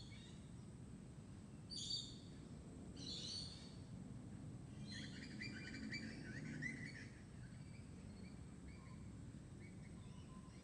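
Birds calling faintly over a low steady background rumble: two short high calls about two and three seconds in, then a longer chattering call, with faint thin whistles near the end.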